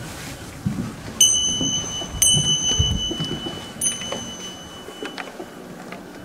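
A small metal bell is struck three times, each strike ringing on in a clear high tone, over dull footsteps on wooden decking.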